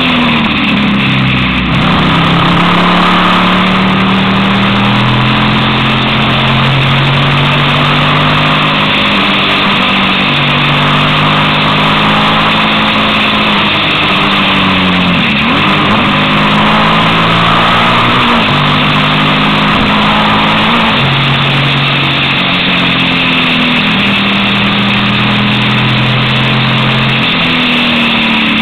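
Onboard sound of a Suzuki SV650 motorcycle's V-twin engine under way, with steady wind noise on the microphone. The engine note holds for a few seconds at a time, then shifts pitch, with brief dips and recoveries about a second and a half in, about halfway through and near the end.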